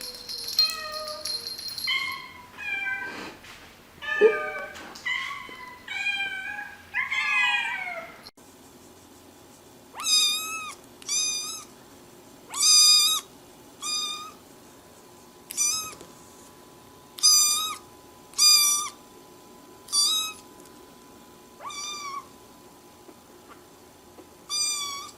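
Domestic cats meowing: a quick run of varied meows, then, after a sudden break about eight seconds in, a series of about ten separate short meows, one every second or two.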